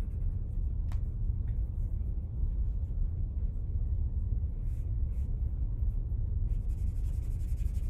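Charcoal stick scratching on drawing paper in a few short strokes, with a longer run of strokes near the end, over a steady low rumble.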